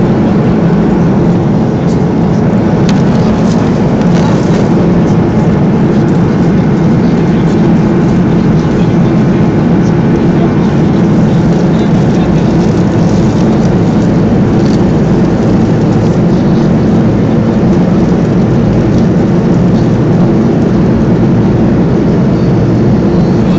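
Steady drone of an airplane's engines and airflow heard inside the passenger cabin.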